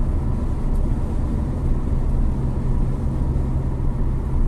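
Road noise inside a car cruising on a highway: a steady low rumble with a constant hum under it.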